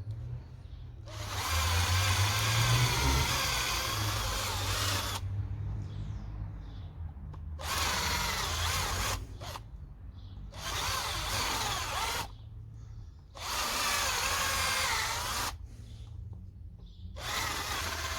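Handheld power tool cutting into a block of birch to hollow out a carved cup, run in five bursts of about two to four seconds each with short pauses between.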